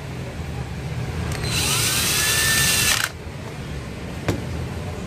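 Cordless drill-driver driving a screw into an angle grinder's gear housing: one run of about a second and a half, the motor whine rising and then holding steady before it stops abruptly. A sharp click follows near the end.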